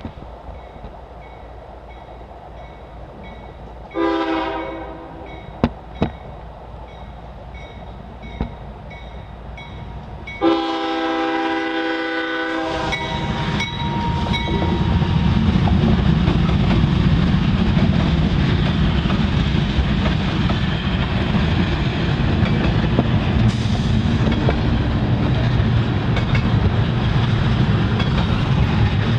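CSX freight train horn sounding at a grade crossing: a short blast about four seconds in and a longer one about ten seconds in, over the faint even dinging of the crossing bell. The diesel locomotive then passes, followed by double-stack container cars rumbling and clacking steadily over the rails, loud and close.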